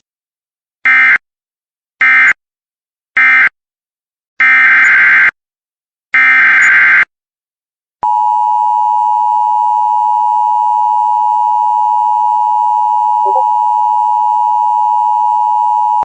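Emergency Alert System tones. Three short bursts of screeching digital data mark the end of the previous message, then two longer data bursts give the header of the next alert. About 8 s in, a loud steady two-tone attention signal begins and holds.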